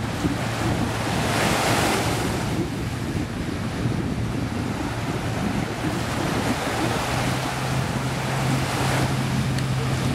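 Jet ski engine running with a steady low hum as it heads out, the hum stepping up a little in pitch about seven seconds in, over surf washing on the shore and wind on the microphone.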